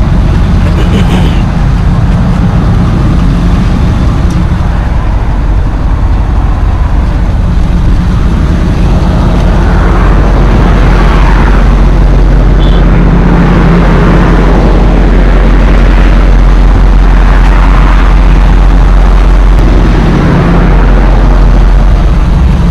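A 2015 Ford F350 dually's turbodiesel V8 idling steadily with a low, even rumble, with rustling noise over it.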